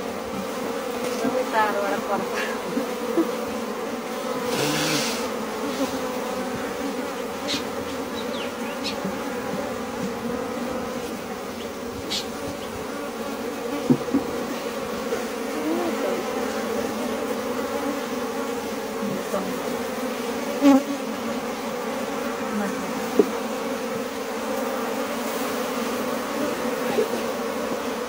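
Honeybees buzzing in a dense, steady hum, a crowd of bees on an open hive frame, with a few brief clicks in the second half.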